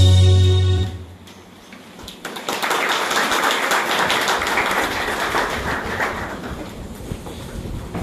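A choir's hymn with keyboard ends on a held chord about a second in. After a short lull, a steady hubbub of many people moving about and talking, with shuffling footsteps, takes over.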